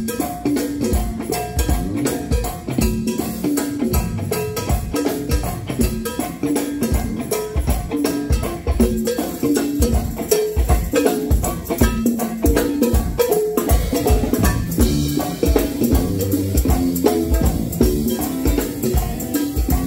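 Live go-go band playing: drum kit and hand percussion keep up a busy, steady beat over bass and electric guitar.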